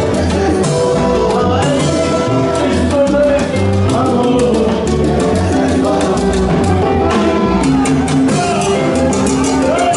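Live salsa band playing: timbales, congas and bongos with piano and bass, trombones and trumpets, and a male lead singer singing over the band.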